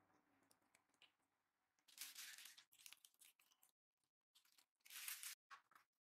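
Faint, intermittent crinkling of a clear plastic piping bag as it is squeezed and handled, with louder rustles about two seconds in and again about five seconds in.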